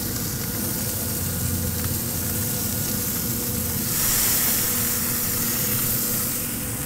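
Butter-basted bluefin tuna steaks sizzling on a cast iron griddle at 600 degrees as clarified butter is brushed on top, a steady hiss that grows brighter and a little louder about four seconds in. A steady low hum runs underneath.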